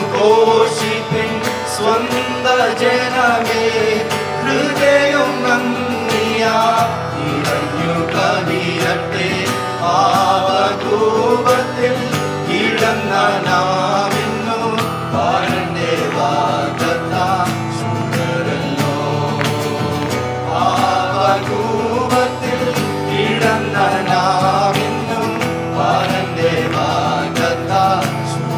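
A mixed group of men and women singing a Malayalam Christian hymn together, with acoustic guitar accompaniment.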